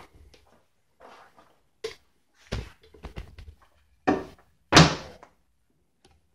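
Wooden shelf boards knocking against each other and against a work table as they are handled and set down: a series of separate hollow knocks, the loudest thump about two-thirds of the way through.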